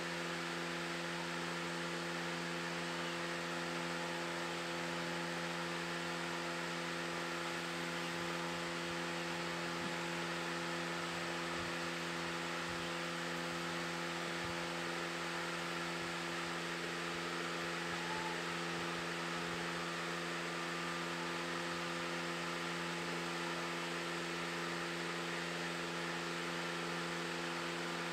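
Steady hum made of several fixed low tones over a hiss, unchanging throughout.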